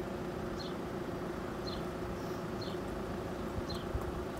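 A steady hum, with a short, high, falling chirp repeating about once a second.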